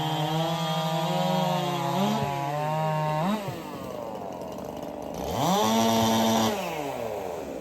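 Race-built two-stroke chainsaws cutting through a log under load. One engine revs up free around three seconds in as its cut finishes. Another rev rises and holds about five seconds in, then falls away near the end.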